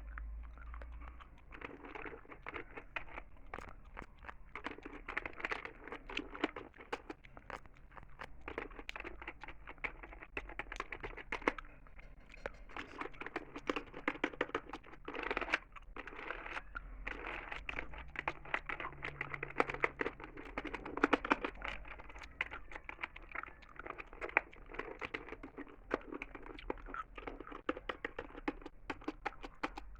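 Gum being chewed close to the microphone: a dense, irregular run of small clicks and crackles.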